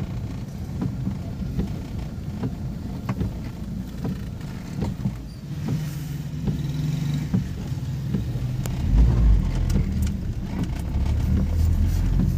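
Suzuki Ertiga driving on a wet road, heard from inside the cabin: a low engine and tyre rumble with scattered light ticks. The rumble grows louder and deeper about nine seconds in.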